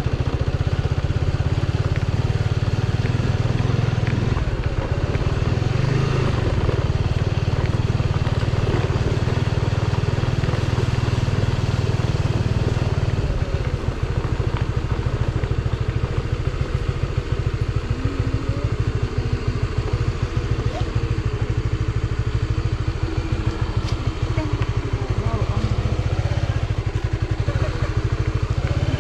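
Motorcycle running at low road speed, heard from the rider's seat as a steady low rumble. It gets a little quieter about halfway through, and the bike slows almost to a stop near the end.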